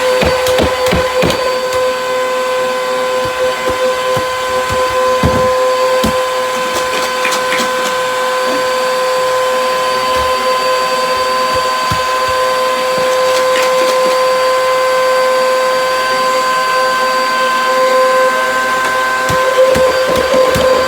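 Vacuum cleaner running with a steady, high whine, with loose screws, bolts and batteries inside it rattling and clicking, most often in the first few seconds.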